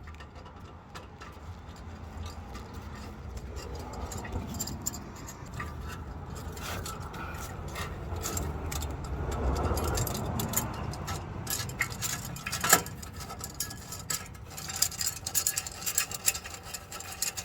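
Small metal clinks, scrapes and rattles of Cat Clamp anti-theft lock hardware being fitted and hand-tightened around the exhaust pipe, with one sharper click about thirteen seconds in.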